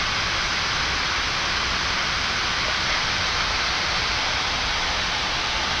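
Steady, even rushing hiss of air-conditioning airflow inside a parked Boeing 787-9 with its engines not yet started.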